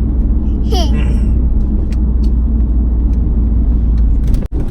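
Steady low road rumble inside a moving car's cabin, engine and tyre noise while driving, cutting out for an instant near the end.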